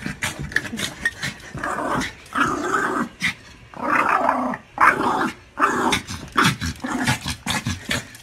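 A dog growling in a string of short bouts, with sharp clicks between them.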